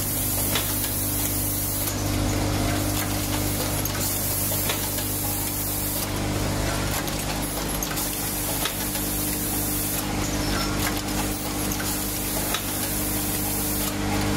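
Automatic cable cutting, stripping and crimping machine running: its pneumatic cylinders cycle with repeated bursts of compressed-air hiss, each a second or two long, and scattered mechanical clicks over a steady motor hum.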